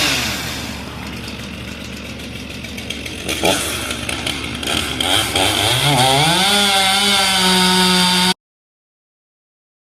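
An engine running, then revving up over about a second and holding a high, steady pitch; the sound cuts off abruptly near the end.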